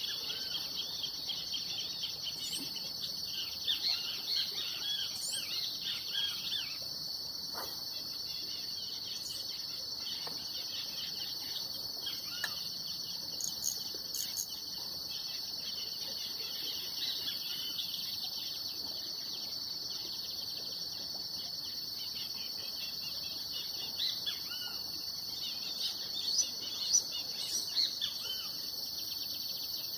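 Steady high-pitched insect song, a continuous trilling drone, with bird chirps and calls over it in the first several seconds and again near the end.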